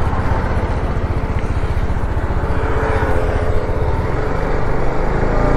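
TVS Apache RR 310 motorcycle engine running steadily as the bike gets under way, a fast, even throb with road noise.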